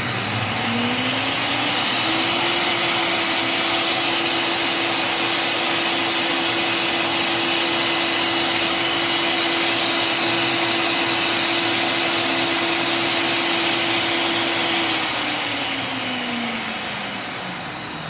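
Wolf Gourmet blender motor, with no jar fitted, running through its preset purée program: it spins up over about two seconds to a steady high whine, holds there, then winds down over the last few seconds. It runs the whole cycle without throwing its Err fault.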